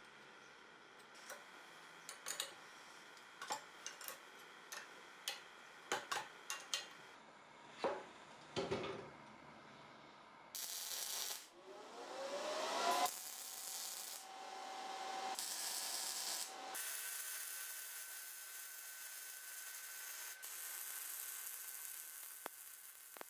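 Metal clinks and clicks of parts and hand tools for the first several seconds. Then a MIG welder arcs in short crackling-hiss bursts from about ten seconds in, followed by a longer continuous weld bead that runs almost to the end.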